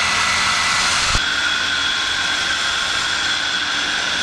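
Handheld electric circular saw cutting lengthwise along a thick wooden plank: a steady high whine over a rasping hiss, with a brief knock about a second in.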